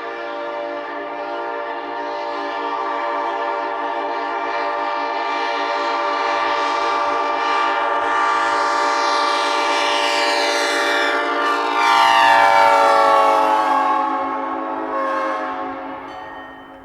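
Nathan P5 five-chime locomotive air horn, most likely the 1950s first-generation horn with vented beryllium diaphragms, blown in one long sustained chord. It gets louder and its tones shift about twelve seconds in, then it dies away near the end.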